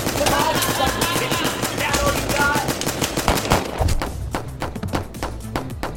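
Rapid automatic gunfire from a film shootout, shots coming thick and fast at first, then spacing out into separate shots in the second half.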